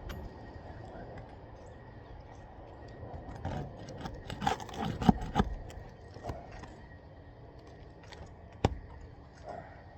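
A hand tool scraping and knocking against asphalt shingles as a shingle's seal is worked loose to reach the nails, with a cluster of sharp knocks about halfway through and one sharp click near the end.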